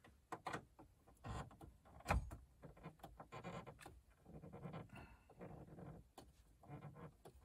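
Faint clicks and scraping of fingers working a small coarse-threaded screw into the plastic instrument cluster bezel of a 1994–96 Chevy Caprice, with one sharper click about two seconds in.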